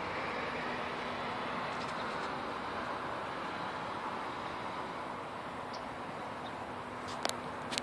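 Steady background noise with a faint low hum, and a few sharp clicks near the end.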